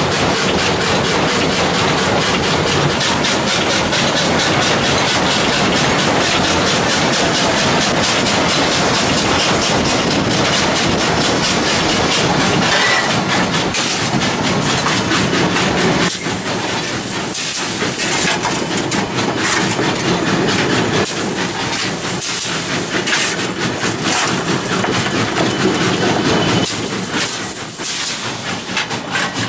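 Loud running noise in the cab of a working 1909 steam locomotive, the engine and the wheels on the rails making a steady din. Three bursts of hissing, each lasting a second or two, come about halfway through, about five seconds later and near the end.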